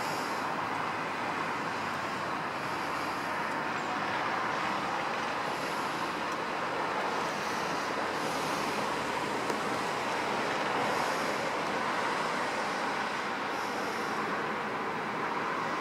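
Steady rushing outdoor background noise, with short high chirps recurring every two to three seconds.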